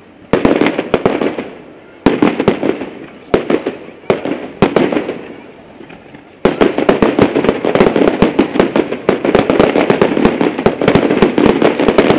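Fireworks display: single shells bursting with sharp bangs, each followed by a fading crackle, about every second and a half. Then, about halfway through, a rapid barrage of bangs.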